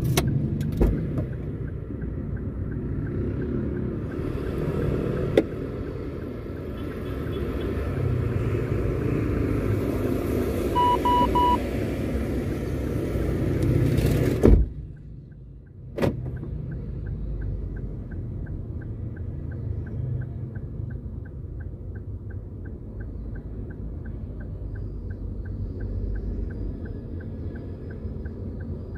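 A car driving, with a steady low road and engine rumble in the cabin. A short double beep sounds about 11 seconds in. After a sudden break near the middle, a light, even ticking runs at about two a second over a quieter rumble.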